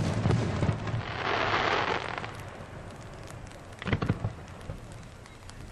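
Aerial fireworks: a large shell bursts with a deep boom, followed by about a second of crackling hiss as its stars burn. About four seconds in comes a quick cluster of sharp bangs.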